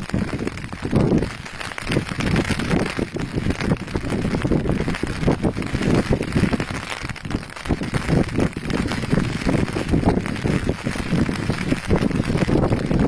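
Strong wind buffeting the microphone in irregular gusts, rising and falling throughout.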